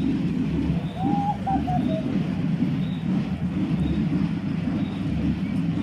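Outdoor parade street noise: a steady low rumble with a soft low thump about once a second, and a short warbling call about a second in.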